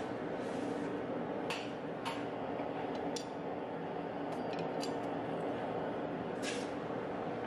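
Forged mild-steel hooks and blacksmith's tongs set down on a steel anvil face, making about half a dozen light metallic clinks, some briefly ringing. A steady hum runs underneath throughout.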